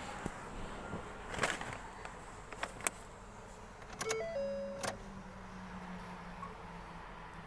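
Sharp plastic-and-metal clicks of a car's MAP sensor wiring connector being handled and unplugged, several single clicks, then a cluster with a short squeak about four seconds in, over a steady low hum.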